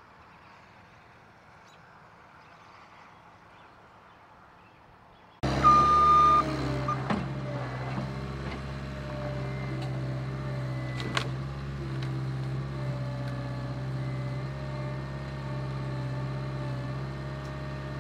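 Faint outdoor noise for about five seconds, then a cut to a Caterpillar 279C compact track loader's diesel engine running steadily under load while it works a grapple on a fallen tree. A brief high beep comes just after the cut, and a few sharp knocks follow.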